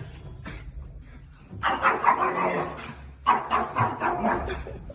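A dog vocalizing loudly in two long bouts of about a second and a half each, the first starting about a second and a half in.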